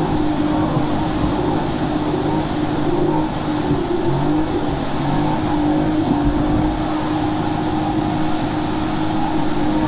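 Motor vehicle engine running steadily under load, with a constant droning tone over a rumble.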